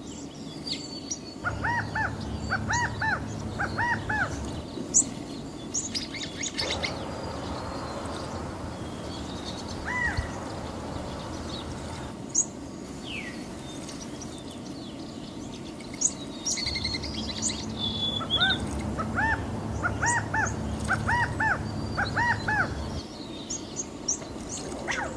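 A flock of caged quail calling: quick runs of short, arched chirping calls in two spells, over many faint high chirps throughout.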